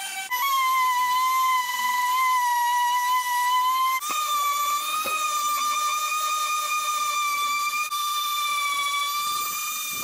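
Electric orbital sander running with a steady high whine as it sands the painted fibreglass skin of a surfboard. Its pitch steps up slightly about a third of a second in and again about four seconds in.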